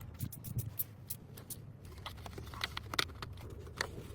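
Scattered light clicks and taps of small engine parts and tools being handled, over a low steady hum; the clicks come more often in the second half.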